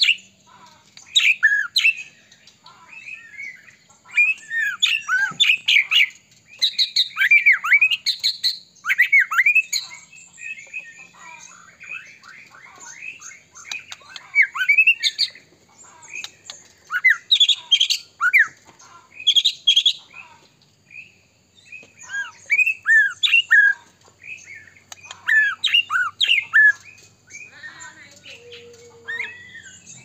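White-rumped shama (murai batu) singing continuously in bursts of rapid, varied whistles, chirps and harsher notes, with short pauses between phrases.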